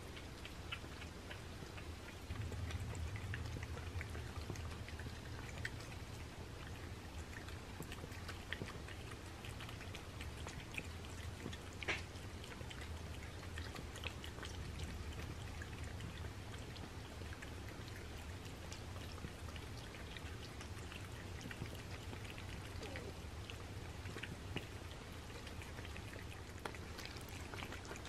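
Several cats eating wet flaked tuna in gravy from paper plates: faint, irregular wet licking, lapping and chewing clicks, with one sharper click about twelve seconds in. A low steady hum runs underneath from a couple of seconds in.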